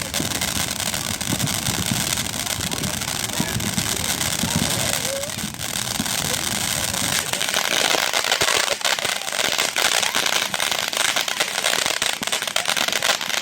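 Backyard consumer fireworks crackling: a dense, continuous stream of rapid small pops and crackles that gets busier and sharper about halfway through.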